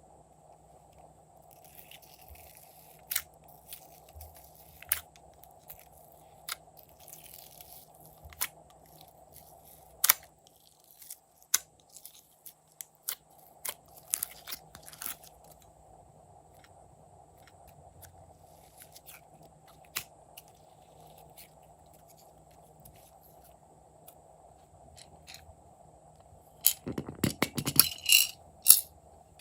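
Slime being handled and mixed by hand, giving scattered sharp clicks and crackles, with a quick run of loud clicks and pops near the end.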